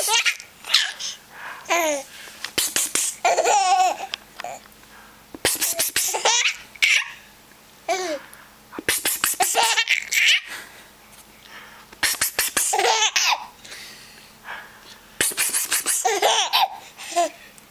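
A baby girl giggling and squealing in repeated rounds, about every three seconds, each set off by a short, breathy, hissing funny noise from her father.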